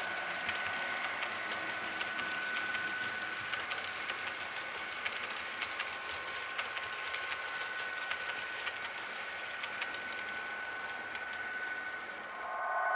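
Model Class 66 locomotive and cement tank wagons running past on a model railway: a steady high whine with rapid clicking of wheels over the track. Near the end the sound switches abruptly to a louder, steady hum.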